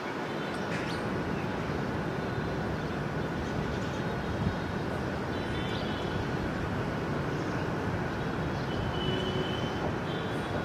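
Steady outdoor engine noise of distant taxiing jet aircraft: a low rumble with a faint, high, steady whine running through it.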